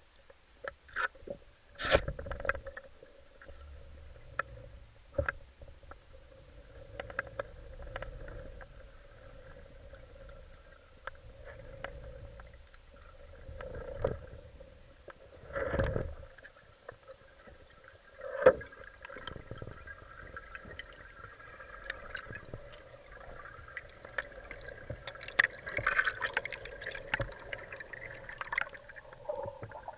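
Underwater sound during a spearfishing dive: a steady hum under muffled water movement, broken by scattered sharp clicks and several louder knocks.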